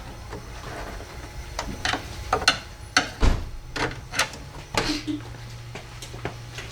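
Scattered sharp clicks and light knocks of tools and car-door parts being handled, with a faint steady low hum starting about five seconds in.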